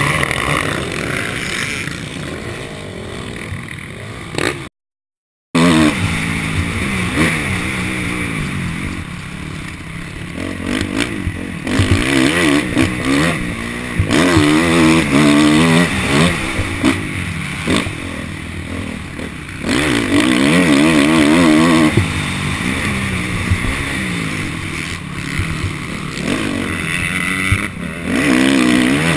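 Motocross bike engine revving up and down on a dirt track, over rushing wind and dirt noise, heard from a camera mounted on the bike. The sound cuts out completely for about a second, around five seconds in.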